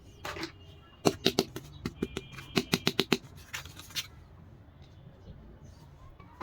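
Small plastic toy dollhouse pieces clicking and tapping as they are handled: a quick run of sharp clicks for about three seconds, then a brief rustle near the end.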